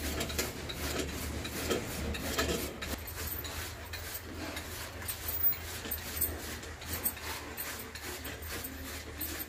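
Hand-cranked saag cutting machine chopping mustard greens, fenugreek and spinach: a steady run of rasping, rubbing cuts and small clicks as the wheel is turned and the leaves are fed through the blades.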